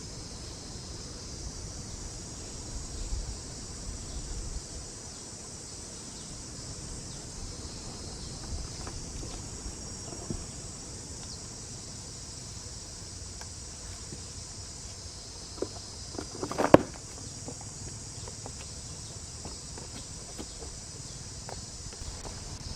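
Steady high-pitched insect chorus, crickets, with a few light knocks and one sharp knock about seventeen seconds in.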